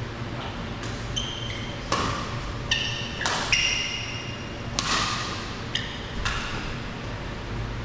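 Badminton rally: about six sharp racket strikes on the shuttlecock, a second or less apart, from about two seconds in, mixed with short high squeaks of court shoes on the court mat.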